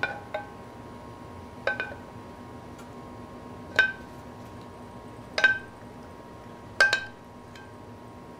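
A metal spoon clinking against cookware in a string of short, ringing taps, one every second or two, as pan juice is spooned over a carved roast chicken.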